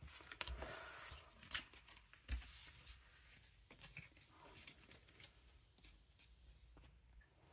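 Faint rustling and a few light taps of Panini Adrenalyn XL football trading cards being handled and set down on a pile on a tabletop, mostly in the first couple of seconds.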